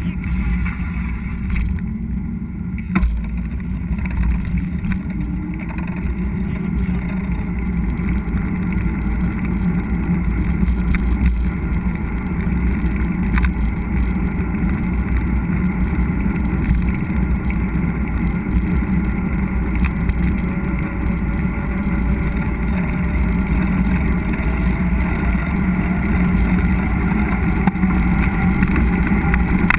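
Steady wind rush on an action camera's microphone with the rumble of a mountain bike rolling over a dirt trail, and a few sharp clicks and knocks from the bike.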